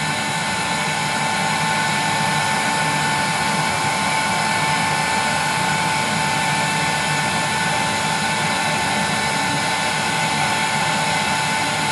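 Heat gun on its high 1200-watt setting, running steadily: a constant blowing rush with a steady high whine.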